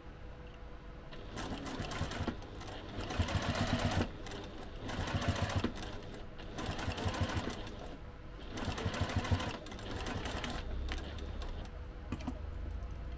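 Electric sewing machine stitching through layers of fabric in about five short runs, stopping and starting with brief pauses between them.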